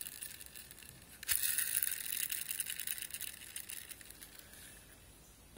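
Gears of an airsoft AEG gearbox turned by hand in the open shell: a faint, fast whirring tick of gear teeth meshing, picking up about a second in and dying away near the end. The gears run smoothly on freshly set shims.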